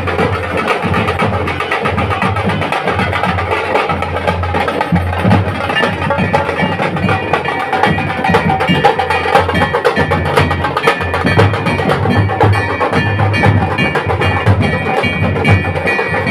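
Dhol drumming in a fast, continuous beat with a shehnai playing over it; the shehnai's held notes stand out more clearly about halfway through.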